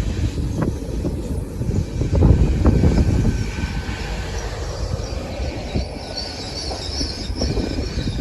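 A train running on the rails, a heavy low rumble with irregular knocks of wheels over the track, and a high metallic squeal joining in about six seconds in.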